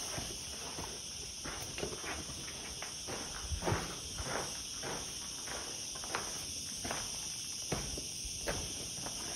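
Footsteps scuffing and crunching on a gritty concrete floor, irregular, about one or two a second, the loudest about a third of the way in. Under them runs a steady high chirring of insects.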